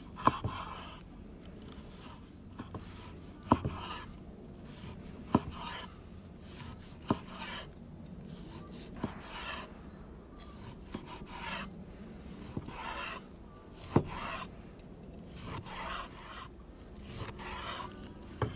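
A large cleaver-style knife slicing a seared, crusty steak with sawing strokes that rasp through the crust. Each slice ends in a sharp knock of the blade on a wooden cutting board, about seven knocks in all.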